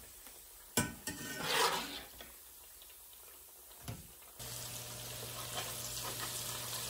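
A spatula knocks a couple of times against the cast-iron skillet as fried falafel are lifted out. About four seconds in, a fresh batch of raw falafel patties goes into the hot vegetable oil and it breaks into a steady sizzle as the oil foams up around them.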